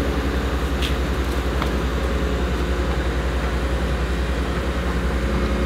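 Excavator's diesel engine running steadily, a deep pulsing rumble. There are a couple of light clinks about a second in.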